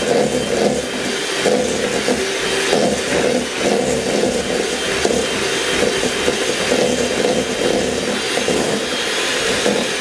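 Electric hand mixer running steadily, its beaters churning a thick creamed butter, sugar and egg mixture in a stainless steel bowl.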